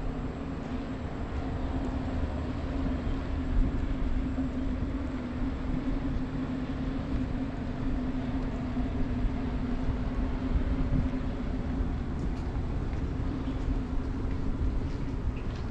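A steady, even mechanical hum over a low rumble, like a motor running.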